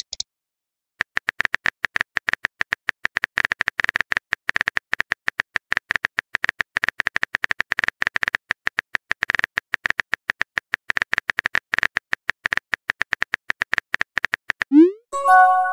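Smartphone keyboard clicks: rapid, irregular taps as a text message is typed. Near the end comes a rising swoosh and a short run of chime tones, the phone's message-sent alert.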